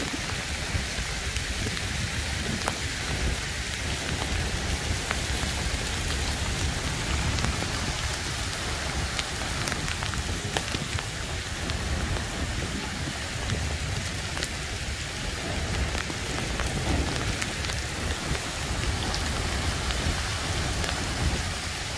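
Heavy monsoon rain pouring steadily onto flat concrete rooftops: a dense, even hiss with small scattered drop-hits and a constant low rumble underneath.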